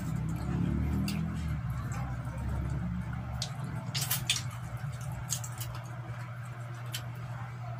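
Close-up eating sounds of people chewing roasted chicken pulled apart by hand: wet smacks and sharp mouth clicks come at scattered moments, the loudest cluster about four seconds in. A steady low hum runs underneath.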